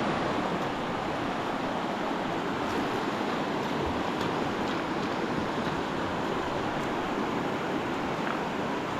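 Fast-flowing river water rushing, a steady even roar of water.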